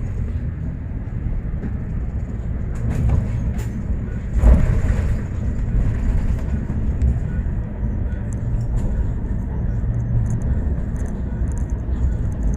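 Bus driving, heard from inside: a steady low engine and road rumble. A brief louder surge comes about four and a half seconds in.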